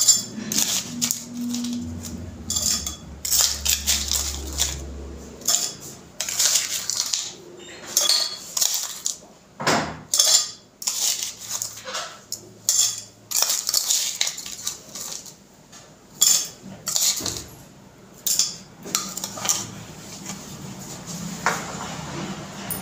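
A steel spoon scraping and clinking against a plate and glasses, with crushed ice rattling as it is spooned into two glasses: many short, irregular clinks and scrapes.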